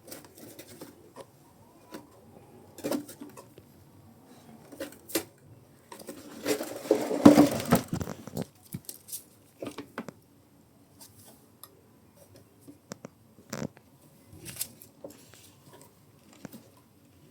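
Hands working a new fuel hose onto a small-engine carburetor fitting: scattered clicks, taps and rubbing of small parts, with a longer, louder scraping rustle about six to eight seconds in.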